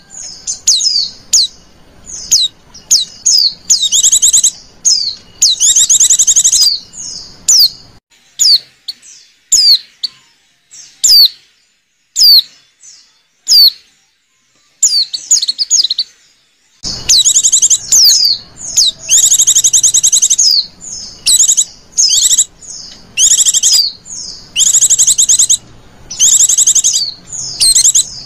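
White-eyes (pleci) singing: quick high twittering phrases about a second long, mixed with single short down-slurred chirps, thinning out to scattered single chirps for a few seconds midway. It is a white-eye song recording of the kind played to lure wild white-eyes.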